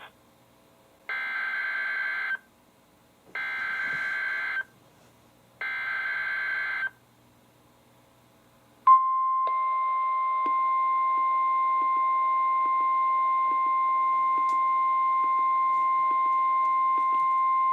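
NOAA Weather Radio alert signal: three short bursts of buzzy SAME header data tones, about a second apart, then after a click a steady single-pitch 1050 Hz warning alarm tone that holds for about nine seconds. This is the sequence that opens a new warning broadcast.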